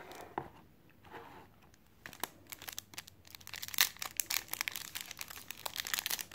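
Foil trading-card pack crinkling and crackling in the hands as its sealed edge is pulled open. There is quiet handling first, then a dense run of sharp crackles from about two seconds in, with one louder snap near the middle.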